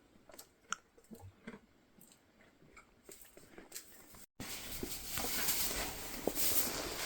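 Faint, irregular crunching clicks of a goat chewing. About four seconds in the sound cuts out briefly, then a louder steady hiss with soft rustling knocks takes over.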